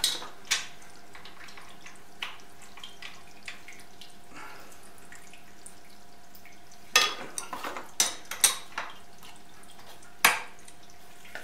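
Sharp metal clinks and clanks of tools and machine parts being handled at a milling machine, a few scattered early and a quick run of them about seven to nine seconds in, over a steady hum.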